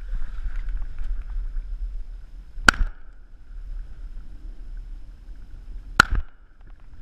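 Two shotgun shots fired at flying ducks, about three seconds apart, over a steady low rumble of wind on the microphone.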